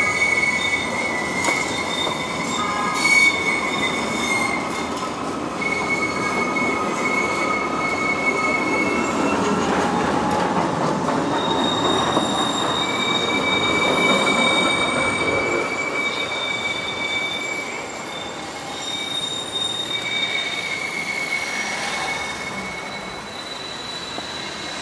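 Tram wheels squealing on the rails: high, steady screeches that break off and come back over the rumble of a passing tram. The rumble swells about halfway through and eases off in the last third.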